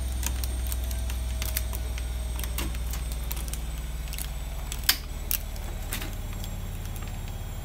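Plastic wiring-harness plugs being unclipped and pulled off a washing machine's control board: scattered small clicks and rattles, the sharpest about five seconds in, over a steady low hum.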